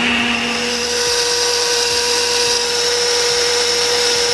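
Ninja Auto-iQ 1100-watt blender motor running on a countdown preset, blending a batter of eggs and cream cheese. Its note shifts higher about a second in as the program changes speed.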